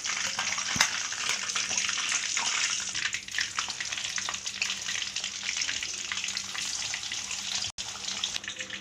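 Marinated chicken pieces sizzling and crackling in hot oil in a kadai as raw pieces are laid in, with a dense spatter of small pops. A faint steady hum runs underneath.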